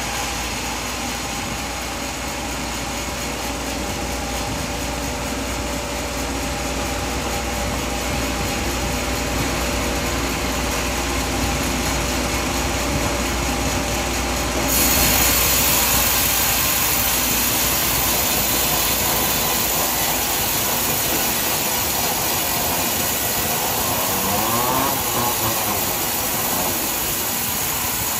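Sawmill machinery running steadily while cutting wood. About halfway through the noise abruptly becomes brighter and a little louder, and a brief rising-and-falling whine comes a few seconds before the end.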